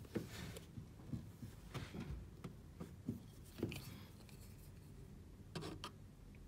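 Faint, scattered small clicks and taps of handling the plastic Nest Heat Link unit and its wired terminals.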